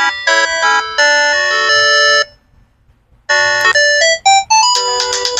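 Polyphonic ringtones from a Sanex SC-7090i phone's CMX sound synthesizer: a chiming electronic melody stops about two seconds in, and after a pause of about a second another tune begins.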